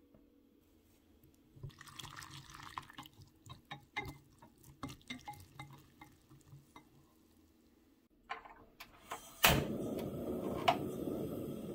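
A wire whisk beating eggs in a glass bowl, tapping and clicking against the glass with a wet sloshing. About eight seconds in, a gas stove burner is lit: a few igniter clicks, a sharp click, then the steady hiss of the flame.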